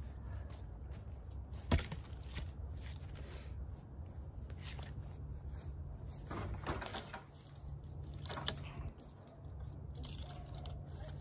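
Cut locust tree limbs being handled and dragged by hand: two sharp cracks of wood, about two seconds in and again about eight seconds in, with rustling and snapping of branches and twigs in between. A steady low rumble sits underneath.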